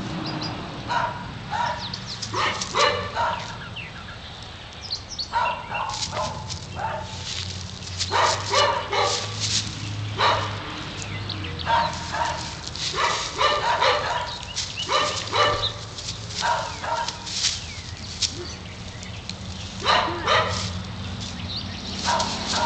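Dogs play-barking: short barks in quick bursts of several at a time, repeated throughout, over a steady low hum.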